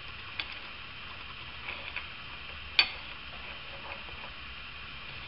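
A bolt being turned by hand into the thread-insert repair of an engine-mount hole: a few scattered light clicks, the sharpest about three seconds in, over a steady low hum.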